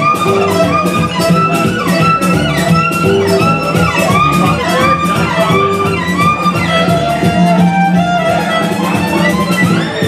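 Violin bowed at a fast tempo, playing a Romanian-gypsy-style melody over a steady driving rhythm and a low sustained bass note.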